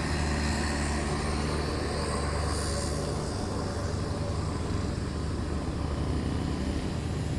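A bus's diesel engine running steadily, with a low, even hum.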